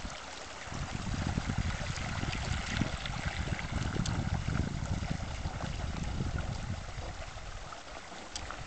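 Gusting wind buffeting the microphone over the wash and lapping of choppy water.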